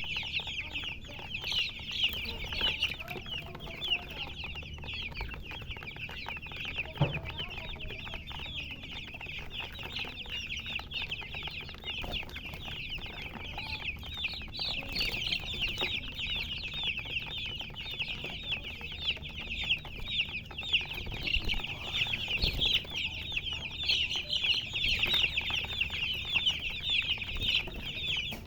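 Many baby chicks peeping continuously, a dense chorus of short, high chirps overlapping without a break.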